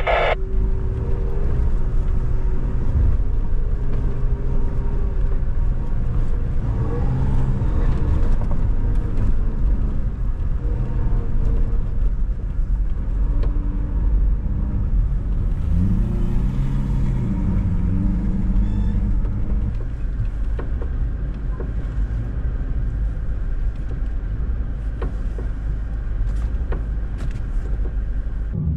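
Toyota Tacoma pickup driving on sand, heard from inside the cab: a steady engine and road rumble. The engine pitch rises and falls a couple of times around the middle.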